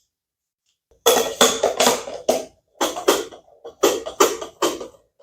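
Short stretch of percussive music with drum hits, coming in three quick groups of beats from about a second in until near the end.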